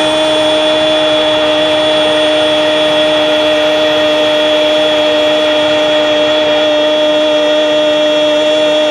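A loud, steady horn-like tone: one held note with rich overtones, unchanging in pitch throughout.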